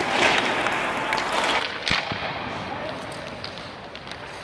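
Hockey skates scraping across the ice, then a single sharp crack of a puck being struck about two seconds in, ringing in the rink. Fainter scattered clicks follow.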